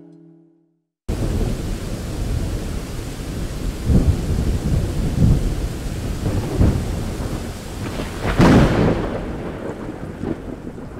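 Storm sound: steady rain with several rolls of thunder, starting about a second in after a brief silence, the loudest thunder late on, then fading out. At the very start the last of a strummed acoustic guitar chord dies away.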